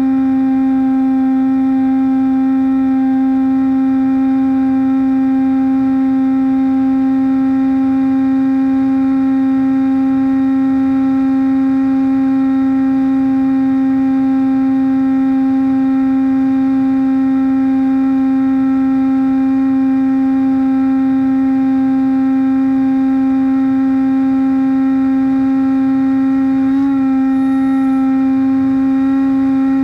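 Brushless outrunner motor and 6x5 propeller of a Bixler RC plane, heard from the onboard camera at a steady throttle: a loud hum held at one unchanging pitch, with fainter higher tones above it.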